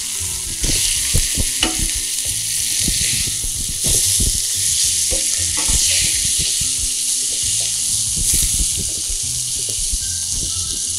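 Food frying in oil in a ridged grill pan on a gas burner, with a steady sizzle. It is stirred and turned with a metal slotted turner, which gives repeated scrapes and knocks against the pan.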